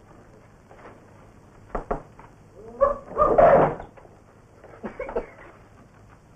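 A dog barking once about three seconds in, a short pitched cry running into a louder rough bark. A few light knocks come before and after it.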